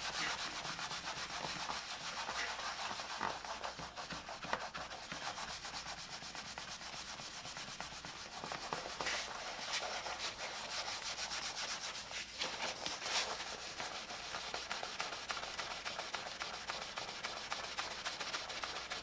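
Steady scratchy rubbing of an alcohol-dampened wipe scrubbed back and forth over a multimeter's plastic and vinyl surfaces to lift permanent marker, with a few harder strokes in the second half.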